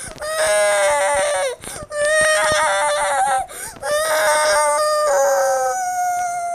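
A high voice crying in long wails, about four in a row, each note held steady and then falling away at its end.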